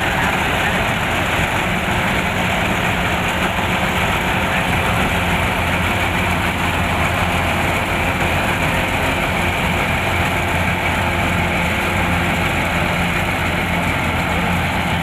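Kubota rice combine harvester's diesel engine running steadily at working speed, with a constant low hum and the clatter of the machinery over it.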